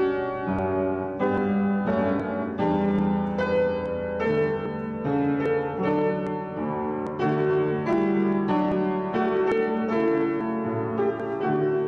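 Piano playing a slow piece in struck chords, a new chord about every half second to second, the notes ringing on between them.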